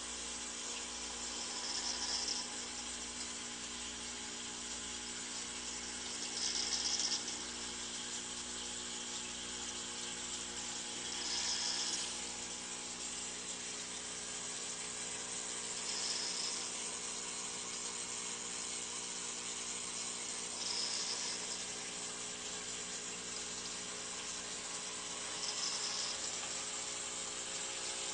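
Small water pump of an aquaponics fish tank and Aerogarden running with a steady hum while water runs through it. Six times, about every four and a half seconds, a brief louder hiss of water surges.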